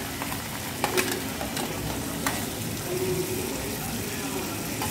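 Onions frying in oil in a steel karahi with a steady sizzle as chopped tomatoes and green chillies are scraped in from a steel plate with a metal spatula, which clinks sharply on the plate a few times.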